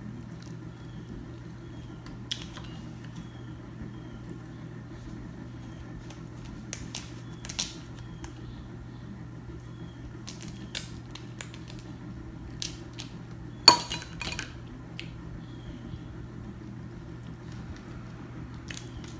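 Snow crab leg shells being cracked by hand and snipped with kitchen scissors: scattered sharp cracks and snips, the loudest about fourteen seconds in, over a steady low hum.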